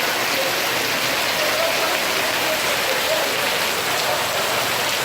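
Heavy rain mixed with hail pouring down in a hailstorm, a dense, steady hiss of drops pelting surfaces.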